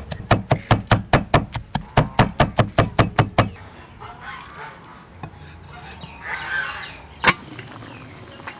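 Cleaver chopping garlic on a wooden cutting board, a fast, even run of about five chops a second that stops about three and a half seconds in. After that come quieter scraping and handling sounds and one sharp knock near the end.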